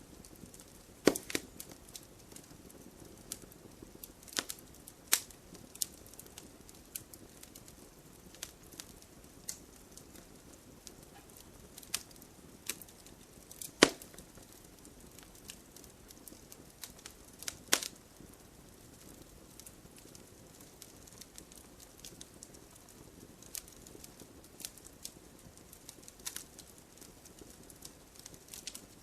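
Campfire burning: wood crackling and popping at irregular intervals over a low steady hiss, with a few louder sharp pops.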